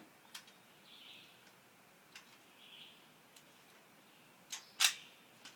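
Metal clicks from an AR-15 rifle being handled as it is unloaded: a few faint clicks, then a sharp double click near the end.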